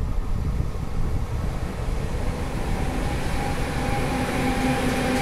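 Siemens Vectron electric locomotive hauling a freight train past at very slow speed: a low rumble from the wheels on the rails, joined about three seconds in by a steady electric hum that grows louder as the locomotive draws level.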